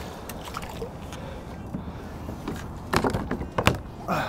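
Knocks and clatter of a paddle and gear against a plastic fishing kayak's hull, a quick run of bumps about three seconds in, over a steady low rumble of wind and water.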